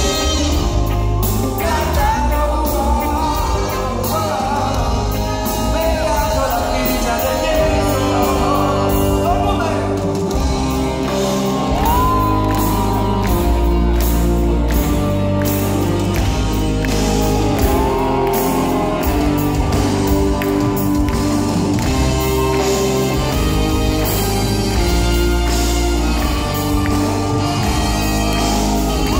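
Live reggae band playing: electric guitars, bass and drums with singing over them, and the crowd shouting and whooping. Heard from among the audience in a large hall, with the hall's echo.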